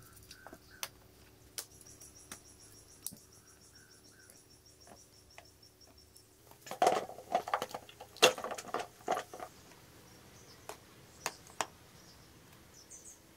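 Hands handling and fitting a plastic motorcycle airbox: scattered light clicks and knocks, then a cluster of louder plastic knocks and rattles about seven to nine seconds in.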